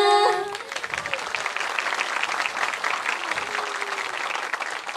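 Theatre audience applauding. It starts as a group's held sung note breaks off just after the start, keeps up steadily, and begins to thin out near the end.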